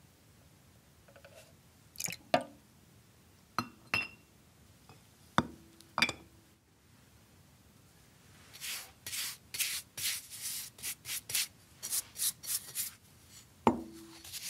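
A few sharp knocks and clinks as bottles and jars are handled and set down, two of them ringing briefly. From about halfway, quick repeated scrubbing strokes, a stiff bristle brush working over the wet cast-metal ashtray.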